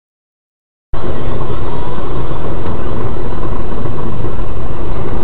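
Dashcam recording of a car driving: loud, steady road and engine rumble inside the cabin, starting abruptly about a second in and heavily distorted.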